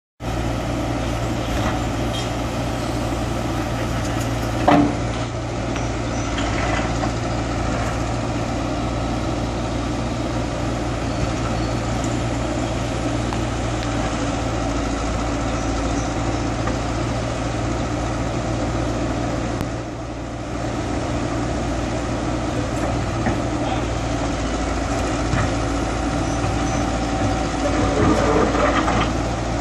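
Caterpillar 312 tracked excavator's diesel engine running steadily while its bucket works at a concrete wall, with a sharp knock about five seconds in and a louder stretch of cracking and scraping near the end as the wall breaks.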